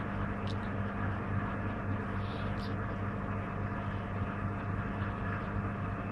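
Servis Gem M310 washing machine running through its rinse stage, its motor and drum giving a steady, even hum with no change in pace.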